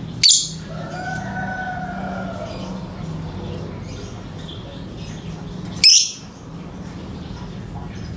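Lovebird in breeding condition giving two loud, short, shrill shrieks about five and a half seconds apart. Between them runs a longer, lower call that arches up and down, over faint chirping and a steady low hum.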